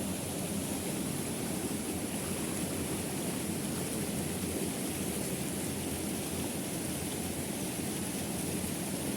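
Steady rushing water of a waterfall, an even, unbroken wash of noise.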